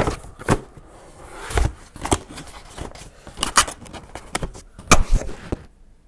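Cardboard box being handled and closed: irregular scrapes and taps of the card flaps being folded and tucked in, with a few sharper knocks against the desk.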